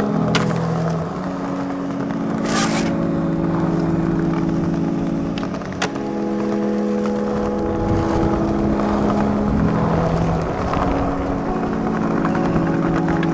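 Electronic music with sustained chords, over skateboard wheels rolling on rough concrete paving. Sharp clacks of the board come shortly after the start, about two and a half seconds in, and about six seconds in.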